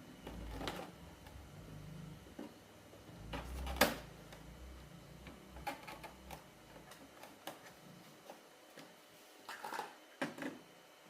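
Irregular light clicks and knocks of hands handling tools and parts, with one sharper click about four seconds in and a cluster of clicks near the end.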